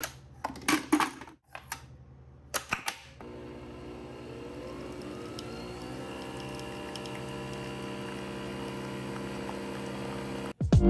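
Several clicks and knocks as the lid of a Nespresso Vertuo capsule machine is handled and closed, then about three seconds in the machine starts a steady motor hum with a slowly rising whine as the capsule spins up, running on while coffee brews. The hum cuts off suddenly just before the end.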